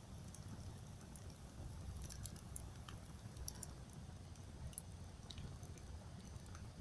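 Campfire crackling: irregular small pops and snaps from burning wood, a few sharper ones in the middle, over a steady low rumble.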